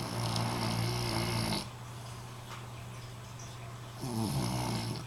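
Snoring: two snores, the first lasting about a second and a half and the second beginning near the end, over a steady low hum.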